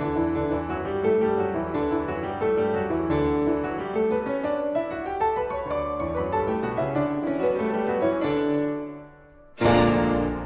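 Piano music playing a flowing melody over chords. It fades out near the end, then a loud new chord is struck about a second before the end.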